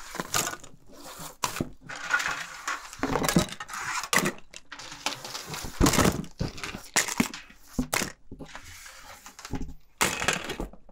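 Plastic toys and packaging being gathered up and cleared off a tabletop by hand: an irregular run of clattering knocks and rustling.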